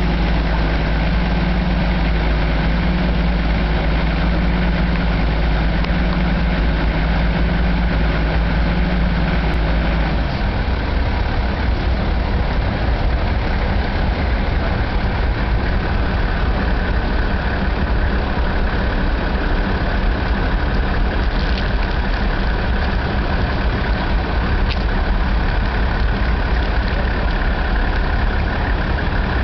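Steady engine drone, like a motor vehicle idling nearby, with a shift in its low tone about ten seconds in.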